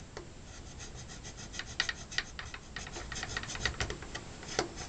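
Thin metal hand tool scraping a slot into the edge of a cordless screwdriver's plastic housing: rapid, short scraping strokes, several a second, starting about a second in.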